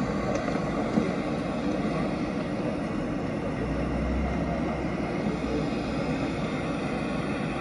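Steady city street noise with passing traffic, and a low rumble that swells for a couple of seconds in the middle.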